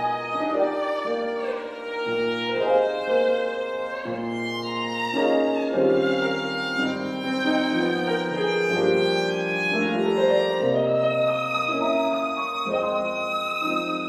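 Violin playing a melody over chords on a Steinway grand piano.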